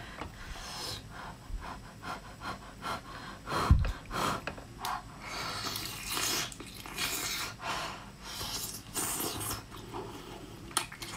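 Close-miked eating of spicy sea snails: a string of wet sucking and slurping sounds as the meat is drawn out of the shells and chewed. A dull thump comes a little under four seconds in.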